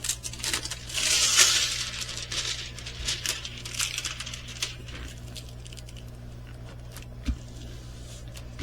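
Plastic cover sheet and canvas of a diamond painting kit rustling and crinkling as hands smooth out the creases, with scattered light clicks and taps. The handling dies down about halfway through.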